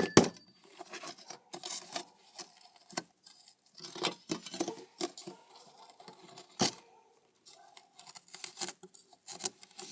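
Metal hand tools clinking, scraping and tapping against the forge screen while prying out lumps of solidified aluminium that clog it, in irregular small knocks with one sharper knock about two-thirds of the way through.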